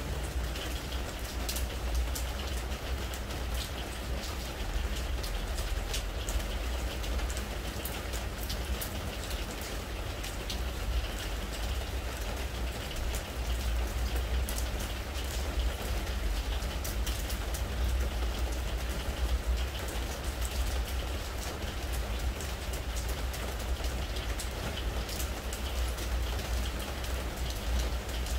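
Steady spring rain falling on a pressure-treated wooden deck, a dense patter of individual drops ticking on the boards, with a steady low rumble beneath.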